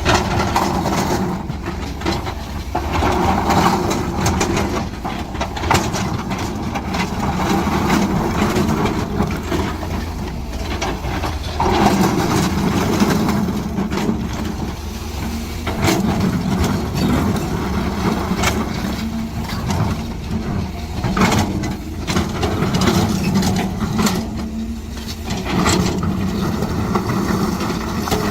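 Heavy construction machinery running: a steady low diesel engine rumble with occasional short knocks and clanks.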